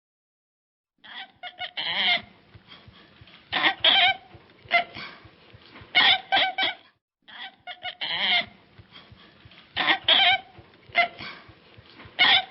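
Domestic fowl calling: loud squawking calls in clusters about every two seconds, over softer clucking. Dead silence for the first second and a brief silent break about seven seconds in.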